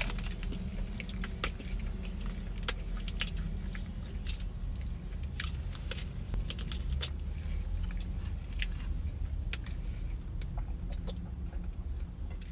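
A person chewing and biting crisp fast food close to the microphone, with many short crunches and mouth clicks scattered throughout, over a steady low hum.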